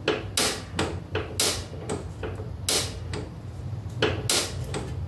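Shift lever and steel linkage rod on a riding-mower chassis clicking and clunking as they are worked back and forth by hand, several sharp knocks at irregular intervals. The front lever shifts, but slop in the linkage keeps it from moving the rear one enough.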